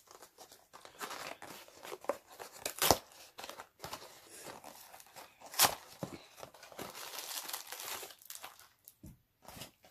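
A Twinkie's plastic wrapper being crinkled and torn open by hand, with two sharper crackles about three and five and a half seconds in.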